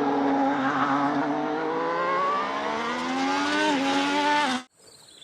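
Formula 1 race car engine sound effect, revving with a slowly rising pitch and a short drop near the end, then cutting off abruptly.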